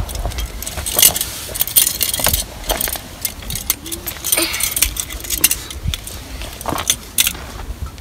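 Light metal clinks and scrapes of a camping stove's fittings as it is screwed onto the threaded valve of a screw-on gas cartridge, a dozen or so short clicks at an uneven pace. A steady low rumble of wind on the microphone lies under them.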